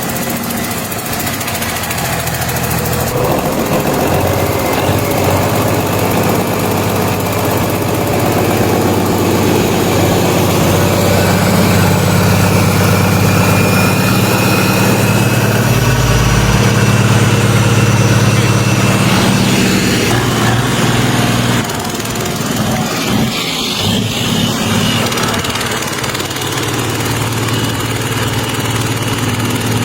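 An engine running steadily, growing gradually louder and then dropping back about 22 seconds in.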